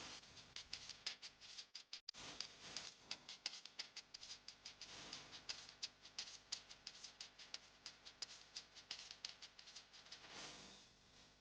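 Close-up eating noises: rapid, irregular small clicks and crackles, several a second.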